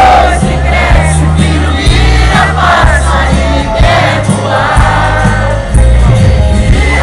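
Live sertanejo music played loud through a concert PA: a singing voice over heavy bass notes, with the crowd's voices singing along close by.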